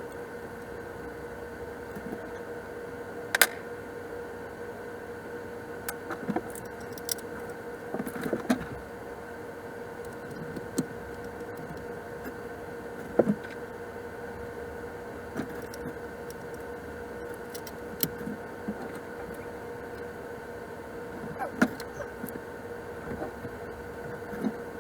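Scattered metal clinks and knocks of hand tools and fasteners being worked on an engine, over a steady hum. The loudest knocks come about three seconds in and near the middle.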